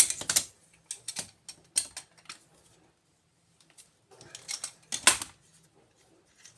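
Small pieces of scrap metal clinking and clattering as they are handled and sorted: a run of sharp irregular clicks and knocks, loudest at the start and again about five seconds in.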